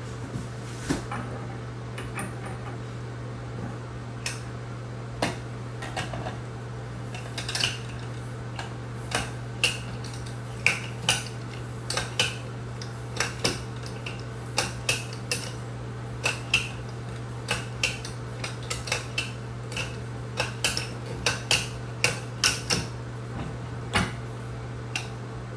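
Irregular light metallic clinks and taps as a tub spout is fitted onto a copper stub-out pipe, many quick clicks over a steady low hum.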